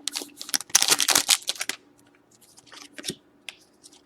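A hockey card pack's wrapper being torn open and the cards handled: a busy run of crinkly tearing and rustling in the first two seconds, then a few light rustles and clicks.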